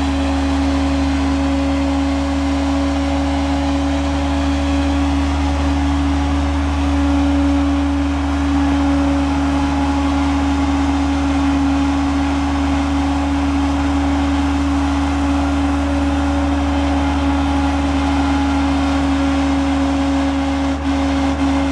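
International DT466 six-cylinder turbo diesel running at a steady speed, driving the PTO hydraulic pump that raises the HI-Ranger bucket boom. It is a steady drone with one strong held tone over a low hum.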